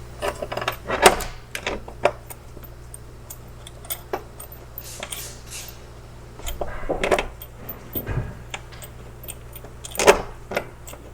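Metal clinks and rattles of bolts and hand tools while the driveshaft's center bearing is being bolted up, the sharpest clinks about a second in and again near ten seconds, with a brief scraping sound midway.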